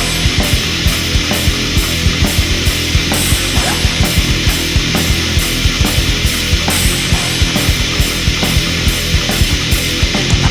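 Black metal music playing, dense and loud, with a steady, regular drum beat.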